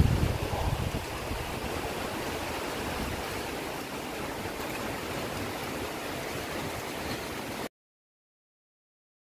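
Wind buffeting the microphone: a strong gust at the start, then a steady rushing hiss that cuts off abruptly near the end.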